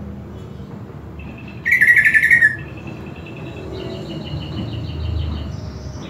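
Greater green leafbird (cucak ijo) singing: a loud, fast trill about two seconds in, then a run of quick repeated high notes.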